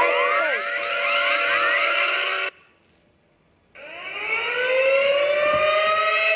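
Emergency alert alarm sirens: many overlapping rising siren tones that cut off about two and a half seconds in, then after a second of silence a siren winding up, rising in pitch and levelling into a steady wail.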